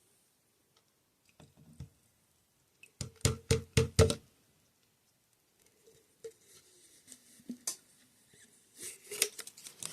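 Hands handling a toy and its packaging: a quick run of about six sharp taps or knocks about three seconds in, then lighter scattered clicks and rustling.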